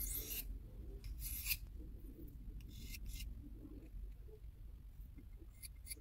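Victorinox Huntsman pocketknife blade drawn across a fine sharpening stone: three faint rasping strokes in the first three seconds, then softer scraping and a couple of light ticks near the end.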